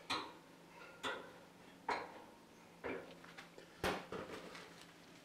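Five light, sharp knocks or clinks about a second apart, the one near the end the heaviest, over a faint steady hum.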